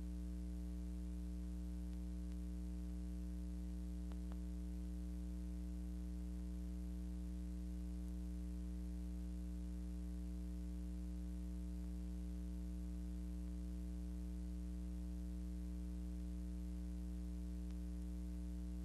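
Steady electrical hum with a faint hiss, unchanging throughout. This is the noise floor of a silent film transfer, with no sound from the action on screen.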